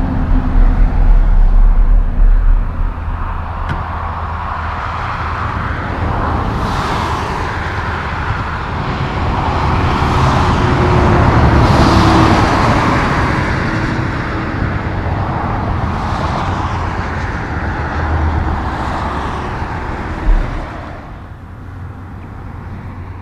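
Road traffic on a nearby highway: a steady rumble and tyre noise that swells as vehicles pass, loudest about halfway through, then fades out near the end. A heavy low rumble fills the first couple of seconds.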